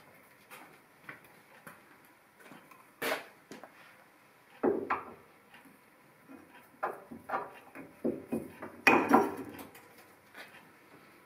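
Cast fixed steady being handled and set down onto the lathe bed's ways: a series of irregular metal clunks and clanks, with the loudest knocks about three seconds in, midway and near the end.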